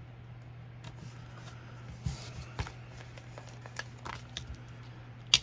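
Planner stickers and paper sheets being handled: scattered rustles and soft taps, with one sharp click near the end, over a steady low electrical hum.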